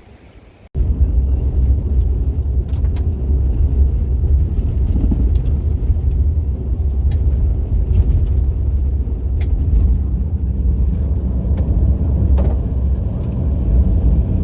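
Motor vehicle engine running steadily with a loud, low rumble, with scattered light clicks and rattles. It starts abruptly just under a second in.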